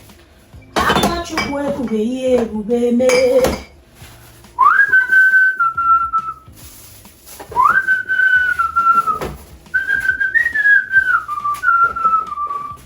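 A person whistling a slow tune in long held notes, in three phrases with short gaps. Before it, a few seconds of humming over the clink and knock of dishes and containers being handled.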